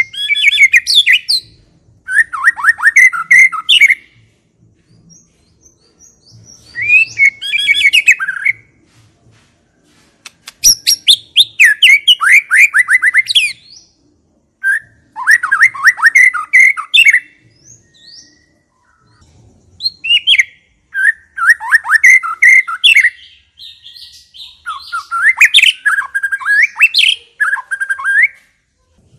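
White-rumped shama (murai batu) singing in loud bursts of rapid, varied whistles and chattering notes, about seven phrases of one to three seconds each with short pauses between, one opening with a fast run of clicks. It is a provocation ('pancingan') song of the kind played to set a silent shama answering.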